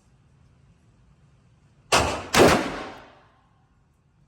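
Two loud revolver shots from a Ruger Super Redhawk in .454 Casull firing 325-grain loads, about half a second apart and about two seconds in. Each report rings off quickly.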